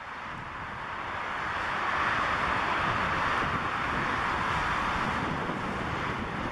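Jet noise from a Bombardier CRJ-900's two rear-mounted General Electric CF34 turbofans on final approach: a steady rushing sound that grows louder over the first two seconds, then holds. Wind buffets the microphone underneath.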